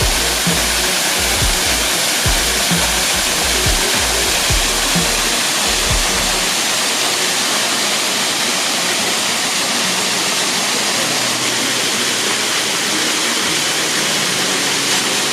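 Waterfall pouring steadily, a loud even rush of water. Background music with a low beat plays over it until about six and a half seconds in.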